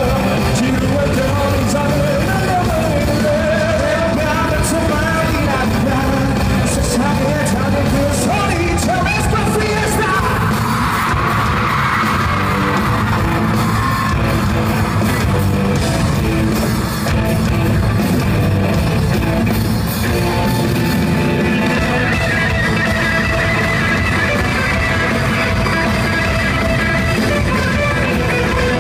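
Pop-rock band playing live in a large hall, with electric guitar, drums and singing, and the audience yelling along; the crowd noise swells about ten to thirteen seconds in.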